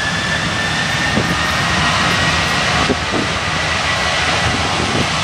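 Boeing 737-700's CFM56-7B turbofans at takeoff power on the takeoff roll: a broad jet roar with a high fan whine that rises slightly in pitch, then holds steady.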